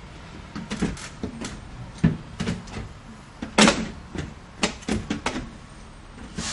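Irregular knocks and clacks of pet door frames being handled and fitted into a door, the loudest knock about three and a half seconds in.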